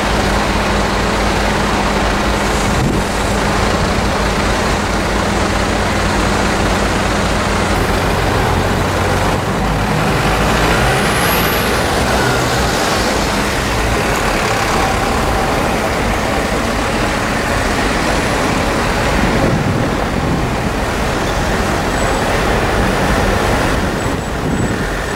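A convoy of fire-service vans and light trucks driving slowly past one after another on a snowy street: steady engine and tyre noise, with a diesel engine's low hum standing out for the first several seconds.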